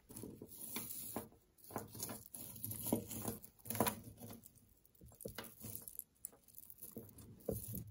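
Jewelry being handled and rummaged through in a box: irregular small clicks and rustles of metal pieces and beads knocking together.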